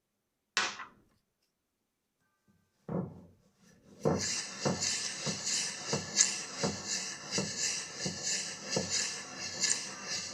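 A utensil stirring the homemade liquid laundry detergent in its container, with rhythmic scraping strokes about one and a half a second. A short knock and a thud come first, with near silence between them.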